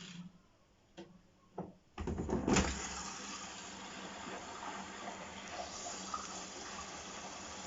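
Hoover H-Wash 500 washing machine during a service-mode check: two short clicks, then about two seconds in water starts to rush into the machine and keeps filling steadily. This is the water inlet being tested.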